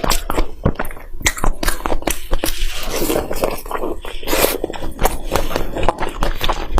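Close-miked eating sounds: biting and chewing, a dense run of sharp wet clicks and crunches.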